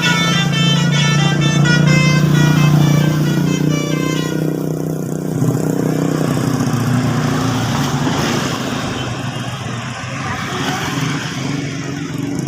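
Bus telolet horn playing a fast run of short, high stepping notes for about four seconds over the bus's engine running. Then the horn stops, leaving engine and road noise.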